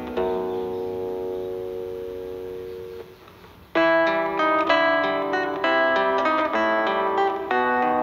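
Solo acoustic guitar music: a held chord rings and fades, a short pause follows, and then quick plucked notes resume at about four seconds in.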